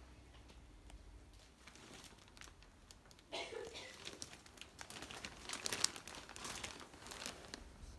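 Crinkling and rustling of packaging being handled, with small clicks, starting about three seconds in.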